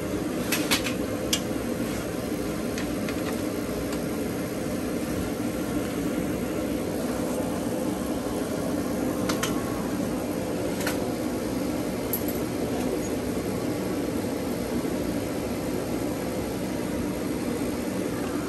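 Steady mechanical hum with a few sharp clicks, the loudest cluster in the first second and a half and two more about nine and eleven seconds in.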